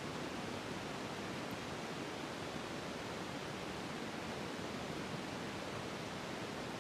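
Steady, even hiss of room tone and recording noise, with no distinct sounds.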